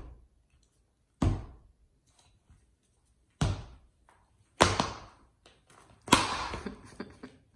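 A monkey banging a sneaker against a hard marble floor and wall: four sharp thuds a second or two apart, the last the loudest and longest ringing.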